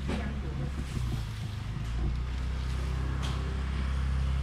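Steady low engine hum that grows a little louder toward the end, with a few light knocks.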